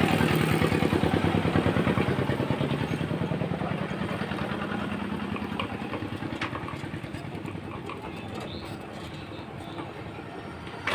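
A 16 hp power tiller diesel engine, cylinder head off, turning over on its flywheel: a rapid, even mechanical clatter with a low hum that slowly fades as it winds down. The turning works the oil pump, pushing oil out through the lubrication line. A single knock near the end.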